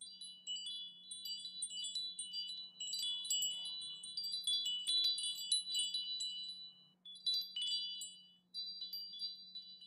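Wind chimes tinkling: many small metal chimes struck in quick irregular succession, each ringing on briefly in high clear tones, with a short lull around two-thirds of the way through. A faint steady low hum sits underneath.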